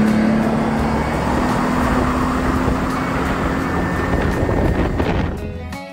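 Yamaha F225 V6 four-stroke outboard running hard under load on plane, its pitch holding steady and creeping slightly higher, over wind and water rushing past the boat. It pulls cleanly without sputtering, with a newly replaced high-pressure fuel pump. The sound fades out near the end.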